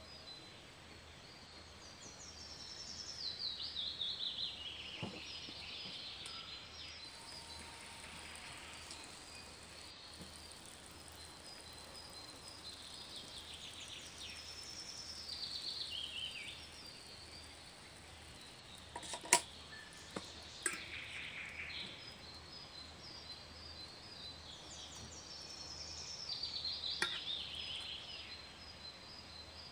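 A songbird singing outdoors: a descending run of notes about three seconds long, repeated three times, over a faint high chirping. A sharp click sounds once about two-thirds of the way through.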